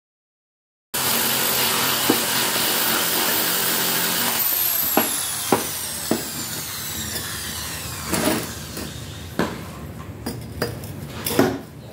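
An electric angle grinder runs at full speed, then is switched off about four seconds in, its whine falling steadily in pitch as it winds down. Steel pipes knock on the work surface several times as they are handled.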